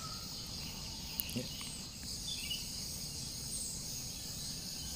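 Steady high-pitched insect chorus, with a couple of faint taps a little over a second in and a few faint bird chirps.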